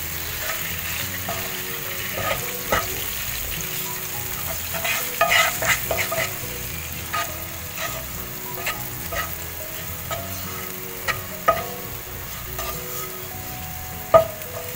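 Boiled eggs frying in oil in a nonstick pan, sizzling steadily, while a wooden spatula turns them, with scraping and scattered clicks and knocks against the pan. A busier run of clicks comes about five seconds in, and the loudest knock near the end.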